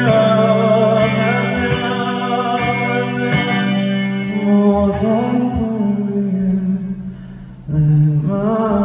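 Live band music with a male voice holding long, wordless sung notes over sustained chords. Near the end the music thins out briefly, then swells back in.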